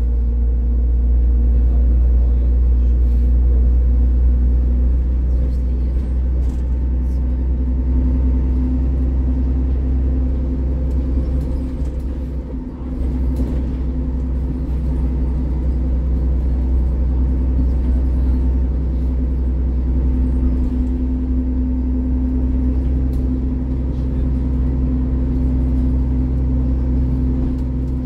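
Alexander Dennis Enviro 400 double-decker bus heard from inside while on the move: a steady low engine and road rumble, the engine note shifting a few times, with a brief dip in level about halfway through.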